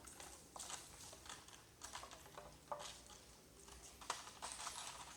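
Baby monkey suckling at its mother's teat: faint, irregular clicks and short scratchy bursts, about a dozen spread unevenly.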